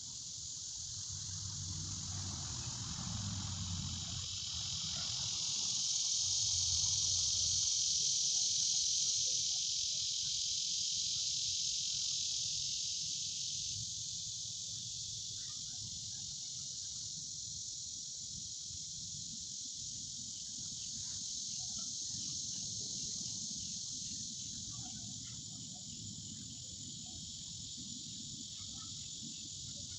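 Steady high-pitched insect chorus that swells about a quarter of the way through and then eases, with scattered faint ticks and a low rumble underneath.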